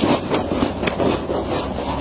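Freezer frost being bitten and chewed: a dense crackling crunch with several sharper crunches.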